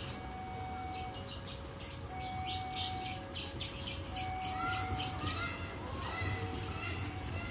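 Birds chirping rapidly, with long steady whistled notes alternating between two pitches and short rising calls in the second half, over a low steady rumble.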